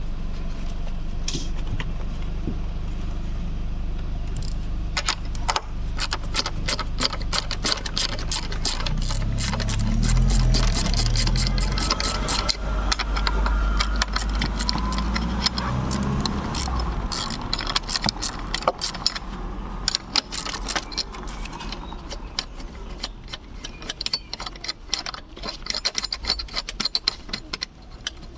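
Metal hand tools and car parts clicking and rattling in irregular runs over a steady low rumble. The clicks start about five seconds in.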